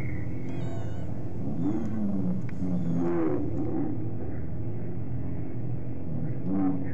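Guitar noise drone run through delay, reverb and looping effects pedals: a dense, steady low hum with wavering, gliding wails on top.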